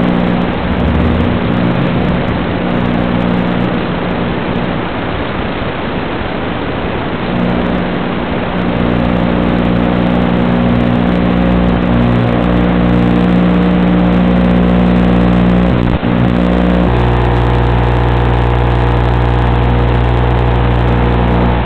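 Steady hiss with a constant electrical hum, the audio channel of an analog FPV video receiver captured by the DVR. The hum shifts to a new pitch around seven seconds in and again around seventeen seconds in. It carries on unchanged after the quad has landed and disarmed, so it is not the motors.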